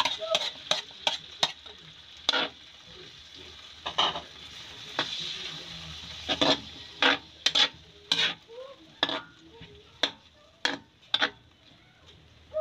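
Metal spatula scraping and knocking against a wok as chicken and peppers are stirred, irregular clatters over the sizzle of the food frying, the sizzle strongest a few seconds in.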